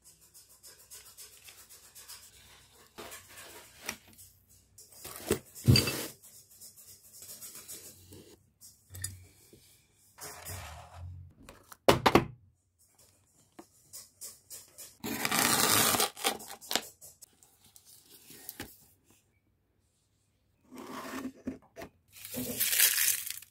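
Objects being handled and moved about on a wooden tabletop: scraping, rubbing and a few sharp knocks. There are louder stretches of rustling, like plastic being handled, about two-thirds of the way in and near the end.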